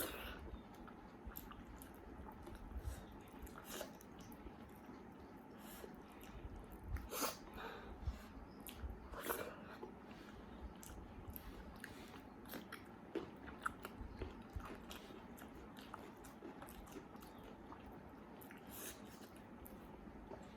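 A person eating close to the microphone: soft chewing and mouth smacks with scattered small clicks, a few a little louder than the rest.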